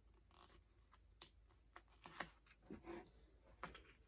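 Faint rustling of a sticker book's paper pages being handled and slid across the desk, with a few light clicks and taps.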